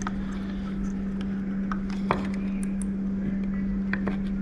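Scattered small clicks and taps of plastic wire connectors being handled and plugged into a scooter controller, the clearest about two seconds in, over a steady low hum.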